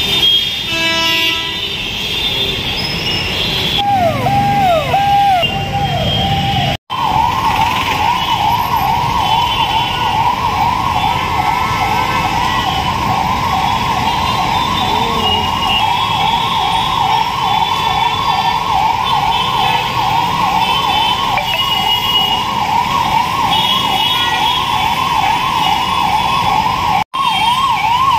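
Ambulance siren: falling sweeps at first, then about 7 s in a fast, even up-and-down yelp that keeps going, over the noise of stalled traffic.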